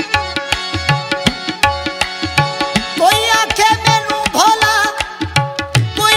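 Sufi folk music, instrumental: a quick, steady drum rhythm under held instrumental notes. A wavering melodic line comes in about three seconds in.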